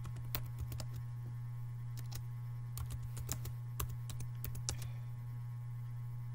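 Typing on a computer keyboard: irregular key clicks for about five seconds, then they stop, over a steady low hum.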